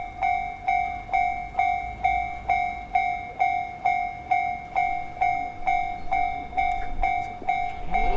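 Japanese level-crossing electronic warning bell ringing, a two-pitched ding repeating about two and a half times a second, signalling that a train is approaching. Near the end a rising whine joins in.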